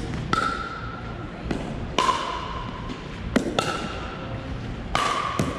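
Pickleball rally: the plastic ball is struck back and forth by paddles, about four hollow pocks each with a short ringing tone, and softer knocks between them, echoing in a gym.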